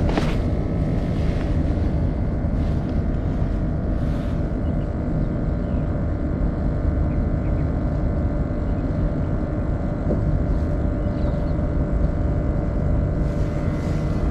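A steady mechanical drone over a low rumble, even and unchanging throughout.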